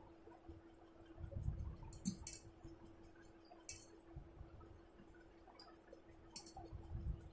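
Quiet eating sounds: soft chewing with a few short clicks and clinks of food being taken from a plate, over a steady low hum.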